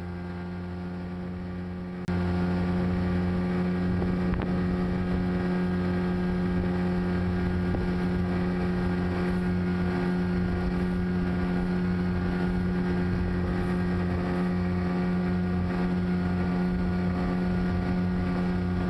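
Dinghy's outboard motor running at a steady pitch while the boat is under way, getting louder about two seconds in and then holding even.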